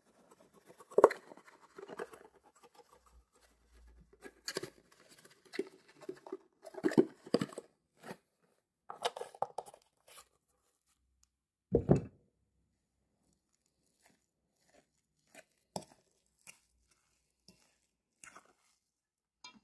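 Irregular clicks, scrapes and knocks of kitchen handling while seasoning mashed potatoes, with a louder, deeper knock about twelve seconds in and only scattered ticks after it.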